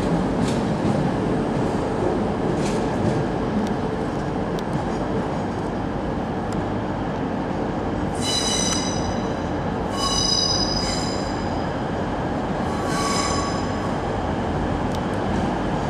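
Wheels of an arriving First TransPennine Express Class 185 diesel unit squealing against the rails on the curve into the platform, in three high ringing bursts over a steady train rumble. In the first few seconds there are sharp clicks of wheels over rail joints as a Class 319 electric unit pulls out.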